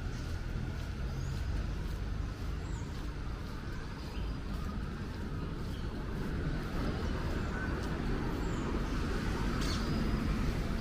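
City street ambience: a steady hum of passing traffic that grows louder near the end, with a few faint bird chirps.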